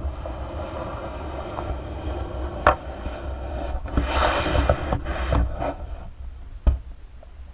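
Muffled underwater sound picked up by a GoPro Hero sealed in its waterproof housing: a steady low rumble and water noise, with a few sharp knocks, one about two and a half seconds in and the loudest near the end.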